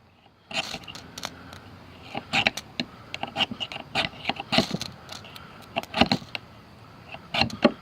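A rapid, irregular series of short metallic scrapes as a Leatherman Style CS multitool is struck along a ferrocerium rod to throw sparks. The tiny tool is a poor scraper.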